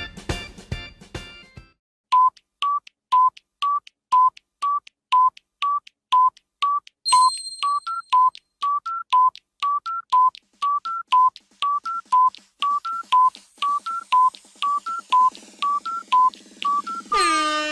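A music clip cuts off about a second and a half in. Then a countdown timer ticks with short electronic beeps, about two a second, alternating between two close pitches, with a brief high chime about seven seconds in. Near the end a loud buzzer sounds, signalling that time is up.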